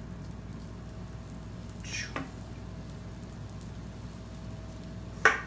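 Pancake batter sizzling in a hot nonstick frying pan, a steady low sizzle with a hum under it. There is a brief scrape about two seconds in and a sharp knock just before the end.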